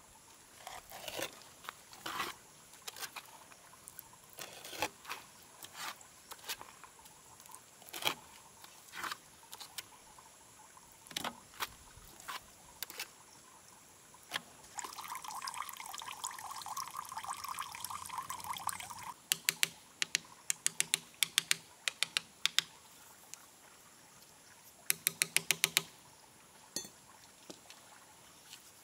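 Steel trowel spreading and smoothing wet cement mortar over a brick wall: a string of wet scraping and smearing strokes, with one longer steady scrape about halfway through. Later come two runs of quick, sharp clicks, the second a fast burst lasting about a second.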